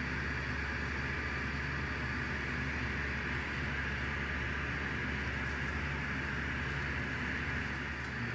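Steady background hiss over a low hum, with no distinct events: room or recording noise.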